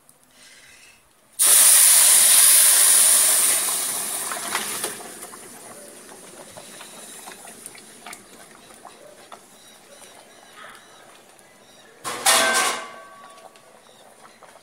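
Pork-rib stew and broth poured into a pan of rice fried in very hot oil, hitting with a sudden loud sizzling hiss about a second in. The hiss fades over a few seconds to a low steady hiss. Near the end there is a brief metallic clatter of pan and spoon.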